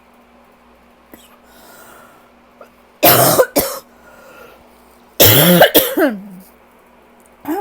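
A person coughing a rough allergy cough from a tight chest. A faint breath comes first, then two sharp coughs about three seconds in, a longer cough with a voiced, groaning tail about two seconds later, and a short cough right at the end.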